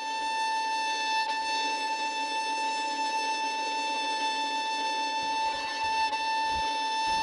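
Violin music holding one long, steady high note.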